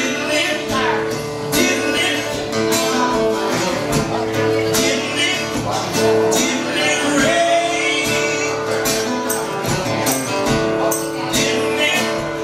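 A man and a woman singing together over a strummed acoustic guitar, a live gospel duet in a room with diners.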